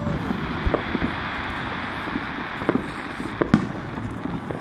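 Fireworks going off: a steady hiss and crackle with a few sharp bangs, the loudest about three and a half seconds in.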